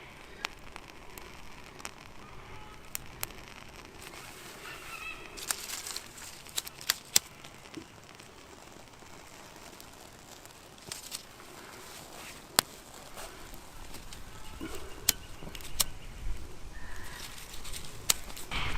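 Small campfire of wet leaves and damp twigs just catching, crackling with scattered sharp pops.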